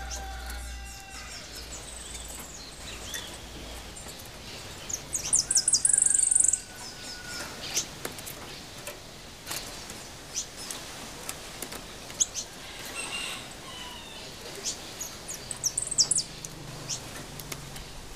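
Caged jilguero songbird singing: a loud run of fast, high notes about five seconds in and a shorter run near the end, with scattered chirps between.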